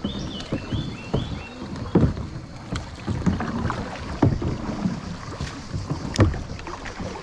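Canoe paddles dipping and splashing in calm river water, with irregular knocks against the plastic canoes, the strongest about two, four and six seconds in.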